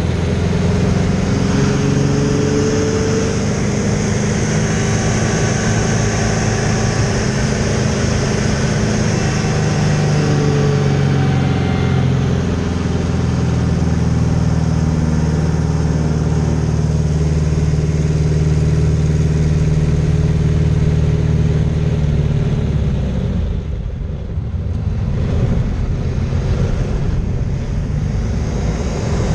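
Piston engine of an aerobatic biplane running hard in flight, with wind rush over the airframe heard from inside the cockpit; the engine note shifts in pitch through the manoeuvres. About three-quarters of the way through, the engine drops off for a couple of seconds, then comes back up.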